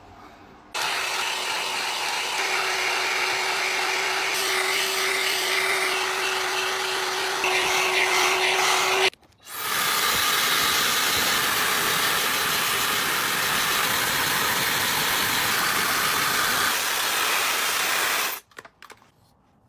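Hair dryer blowing, probably on a freshly washed cat. It switches on about a second in, with a steady hum under the rush of air, cuts off briefly halfway through, then runs again until it switches off near the end.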